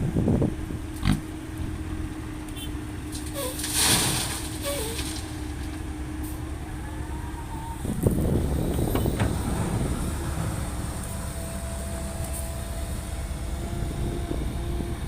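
Diesel engine of a Komatsu PC130-8 excavator running steadily under work, with a couple of sharp knocks near the start, a brief hiss about four seconds in, and a loud clatter about eight seconds in after which the running turns rougher and noisier.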